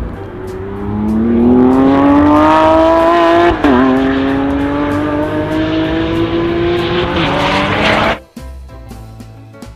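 Lamborghini Aventador SVJ's V12 engine accelerating on a race track, its pitch climbing steadily, dropping sharply at an upshift about three and a half seconds in, then climbing again. Background music runs underneath. The engine stops abruptly about eight seconds in, leaving only the music.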